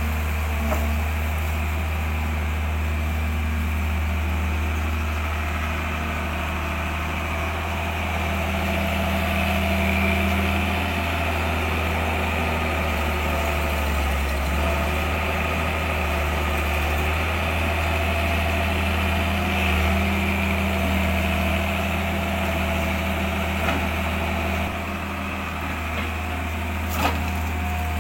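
A steady low mechanical hum with a few steady higher tones, like an idling engine or running machine, with one sharp click near the end.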